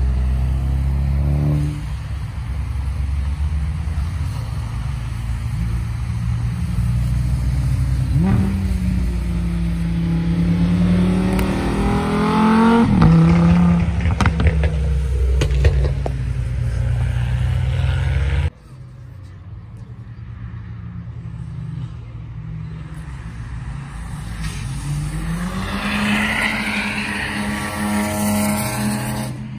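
Track-day cars driving past on a race circuit one after another, engines rising and falling in pitch as they pass. It is loudest about halfway through, with a few sharp cracks. The sound drops suddenly after about 18 seconds to more distant engines, which grow louder again near the end.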